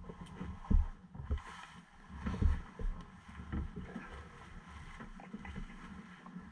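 Rustling of a nylon jacket and bedding, with irregular dull low knocks, as a person shifts about in a sailboat's cabin berth and pulls on a foul-weather jacket.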